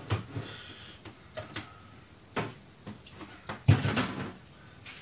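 Kitchen handling noises: scattered clicks and knocks, with one louder thud a little under four seconds in.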